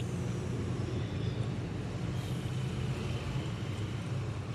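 Steady low background hum, even throughout, with no distinct clicks or events.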